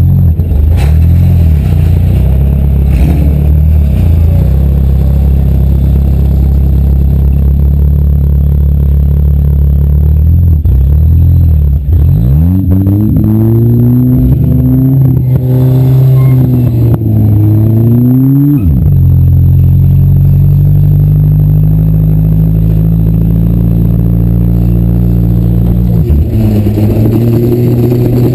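Demolition derby car engine running loud, mostly at a steady pitch. About halfway through it revs up and down several times in quick succession, then settles back.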